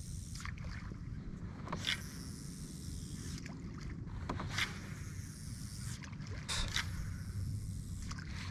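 Water slapping softly against a fishing kayak's hull, a short splash every two to three seconds, over a low steady rumble.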